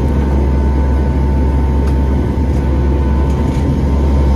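Steady loud drone of a hurricane hunter aircraft's four-engine turboprops heard inside the cabin, with a thin steady whine over it and a few faint rattles during the rough flight.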